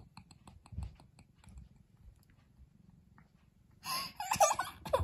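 Domestic cat's low purring while it is stroked, with faint regular clicking over the first couple of seconds. About four seconds in, a child's short giggling voice breaks in and is the loudest sound.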